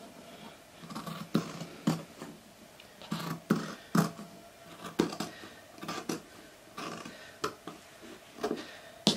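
Scissors cutting through fabric, a sharp snip about every half second to a second.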